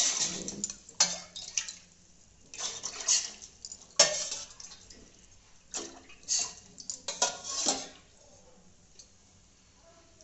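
Water poured from a steel measuring cup into a steel pot, cup after cup: about six short splashing pours, with metal clinks of cup against pot, one sharp clink about four seconds in. The pouring stops about eight seconds in.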